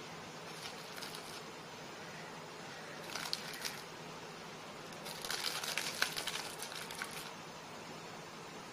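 Two short spells of crinkling and rustling as small biscuits are handled by hand and dropped onto a fruit trifle, the first about three seconds in and a longer one around five to seven seconds in.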